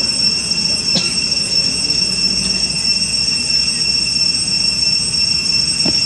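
Insect chorus: a steady high-pitched drone that holds an even pitch throughout, with a couple of faint ticks about a second in and near the end.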